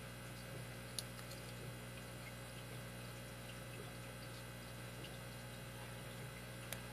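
Faint clicks of a lock pick and tension wrench working the pins inside a 5-pin Master Lock 160 padlock, with two sharper clicks about a second in and near the end, over a steady electrical hum.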